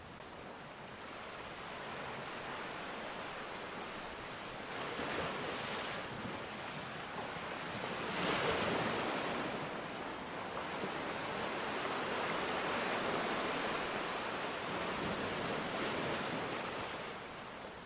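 Sea waves surging and washing ashore, a steady rush of surf that swells loudest about halfway through and stays high for a while before easing near the end.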